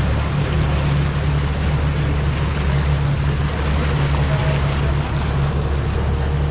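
Outboard motor running steadily as the boat cruises, with water rushing in the churning wake.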